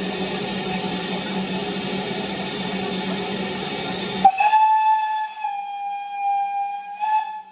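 Steam locomotive: a steady hiss of escaping steam stops abruptly about four seconds in. Its steam whistle then sounds one long note, which dips slightly midway and swells again just before the end.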